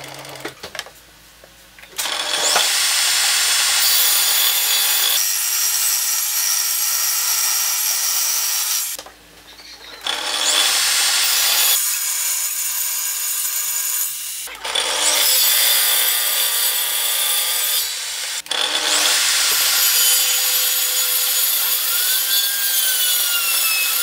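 Table saw running and its blade cutting through wooden boards, several long cuts in a row with short lulls between them.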